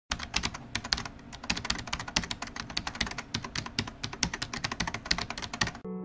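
Rapid, irregular computer keyboard typing, used as an intro sound effect. It stops just before the end as electric piano music begins.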